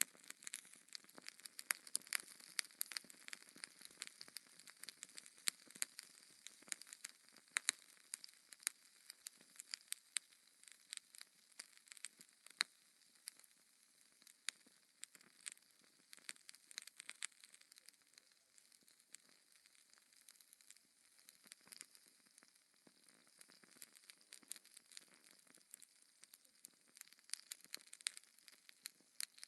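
Wood fire in a fireplace crackling, with frequent sharp pops and snaps over a soft hiss.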